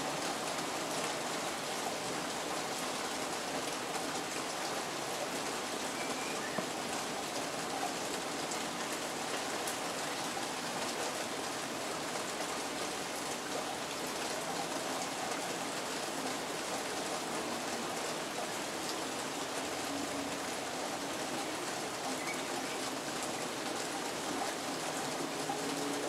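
Steady, even rain falling on a felt-covered shed roof and wooden garden buildings.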